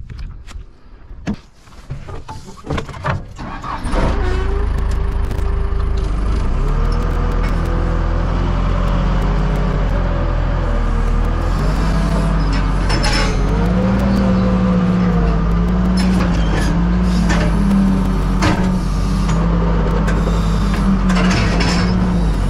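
Tractor engine comes in abruptly about four seconds in and keeps running steadily, its pitch rising and falling a little as it works; a few knocks and clicks before it.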